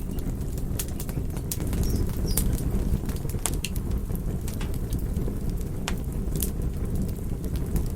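Wood fire crackling in a fireplace: a steady low rumble of burning with frequent sharp pops and snaps at irregular intervals.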